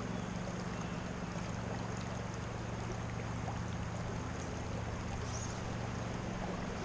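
Creek water flowing: a steady, unbroken rush of current.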